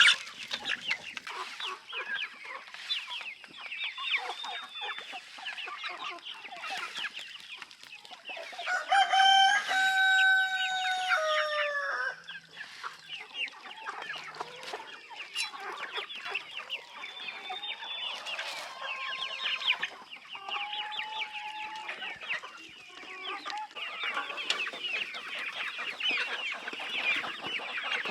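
A flock of chickens clucking and calling steadily, with a rooster crowing once about nine seconds in: a long held call that falls in pitch at the end, the loudest sound here.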